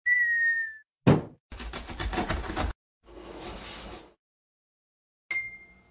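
A string of cartoon sound effects for an animated intro. A short whistle-like tone falls slightly, then comes a sharp whoosh about a second in, a rapid rattling scuffle, and a softer hiss. Near the end a bright ding rings and fades.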